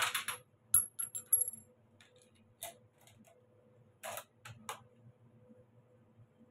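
Metallic clicks and clinks from handling a scoped Lee-Enfield rifle: a quick run of sharp clicks and one knock in the first second and a half, one with a brief high metallic ring, then three more clicks about four seconds in.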